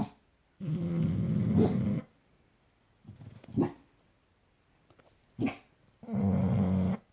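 Bulldog snoring in its sleep: two long, loud snores, the first about a second and a half and the second about a second, with short snorting breaths between them.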